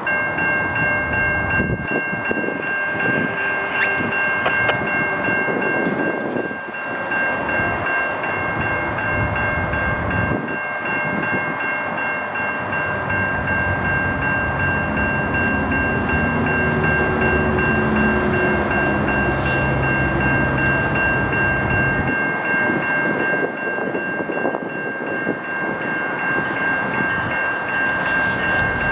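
GO Transit MP40PH-3C locomotive's air horn held in one long, steady three-note chord, over the rumble of the train rolling past. A lower drone joins in for several seconds in the middle.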